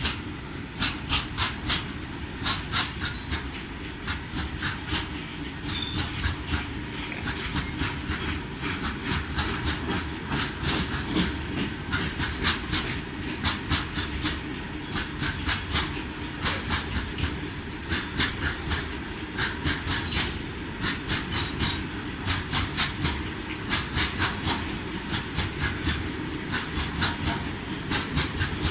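Large goods train running on the track: a steady rumble with the wheels clicking over the rail joints in repeated small clusters, clickety-clack.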